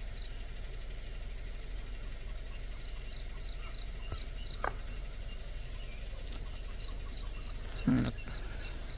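Insects chirping in short regular pulses, a few a second, over a steady high-pitched insect drone. A brief voice-like sound comes near the end.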